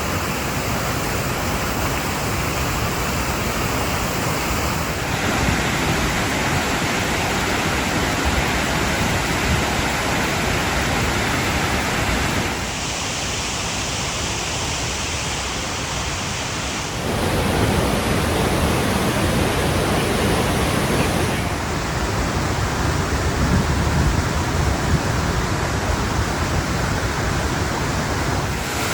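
Waterfall rushing steadily and loudly, its tone shifting abruptly a few times, about 5, 13, 17 and 21 seconds in.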